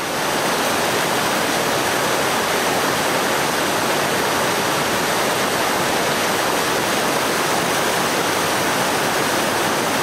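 River water rushing over rocks and low stone dams: a steady, even rush of water.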